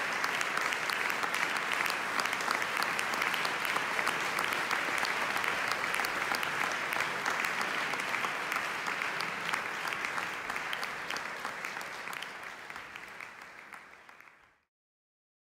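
Audience applauding with dense, steady clapping that fades out and cuts off near the end.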